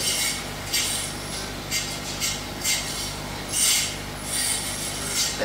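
Short, soft hissy rustles, about eight spread irregularly over a few seconds, over a faint steady low hum.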